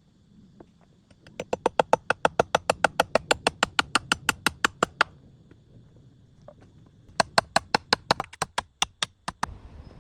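A rapid run of sharp knocks, about seven a second, lasting roughly four seconds. After a pause a second, shorter run follows and slows toward its end.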